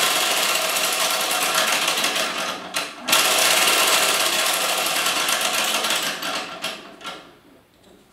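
Delta 16-inch variable-speed scroll saw running with no blade fitted, its arm reciprocating with a fast, loud mechanical clatter. It cuts out briefly about three seconds in, starts again, then dies away to near quiet near the end.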